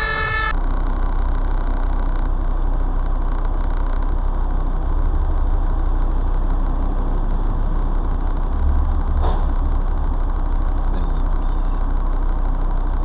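A siren cuts off about half a second in. After that a car engine idles with a steady low rumble, heard from inside the cabin, with a few faint ticks in the last few seconds.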